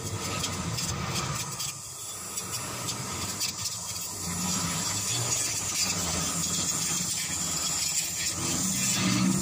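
Road traffic passing: cars and motorbikes going by, a continuous rushing noise with an engine hum that swells and fades.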